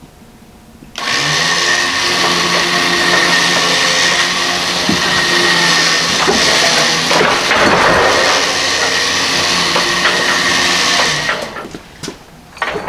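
Electric winch motor running steadily under load for about ten seconds, reeling in its cable to pull a heavy cast-iron engine power unit on a wheeled cart toward a trailer ramp. It starts about a second in and stops near the end.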